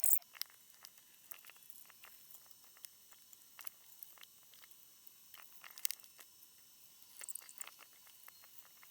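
Faint, scattered small clicks and taps of hands working a plastic clip-on LED strip connector, with a few slightly louder clicks a little before the middle and near the end.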